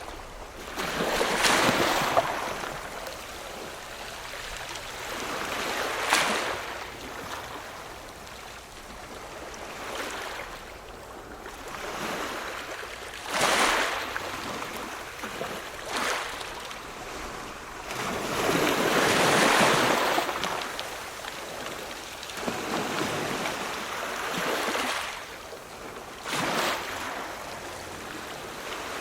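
Ocean surf: waves washing in one after another, each swelling and falling away over a few seconds, some noticeably louder than others.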